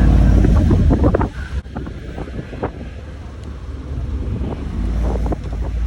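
Wind buffeting the microphone over a low vehicle rumble, heaviest in the first second or so and lighter after about a second and a half.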